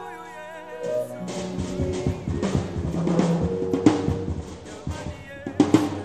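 Yamaha drum kit played in a dense run of snare and bass-drum strokes, starting about a second in over held chords and a bass line. A few sharp accents come near the end.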